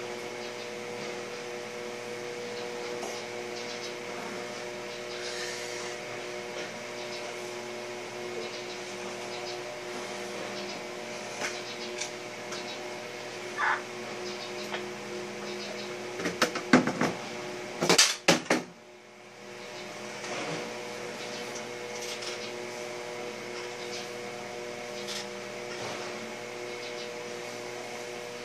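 A steady machine hum with several fixed tones. About two thirds of the way in comes a quick cluster of sharp knocks and clicks, the loudest sounds, and the hum dips briefly after it.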